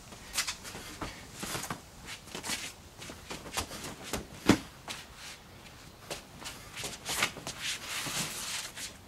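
Trainers stepping, pivoting and scuffing on stone paving slabs, with quick swishes of moving clothing and the swung short polypropylene bat, in a fast, irregular run. The heaviest stamp comes about four and a half seconds in.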